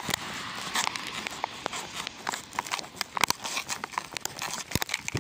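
Rustling and crackling from a hand-held phone being handled while walking, with many irregular sharp clicks.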